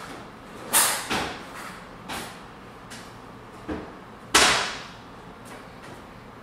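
A string of sudden sharp bangs and thumps, each dying away quickly, the two loudest about a second in and just past four seconds, with lighter knocks between.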